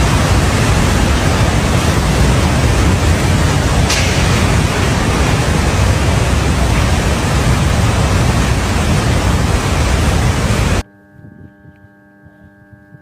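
Loud, steady rushing of a muddy flood torrent tearing past a substation, cutting off suddenly about eleven seconds in. A faint steady hum of several tones follows.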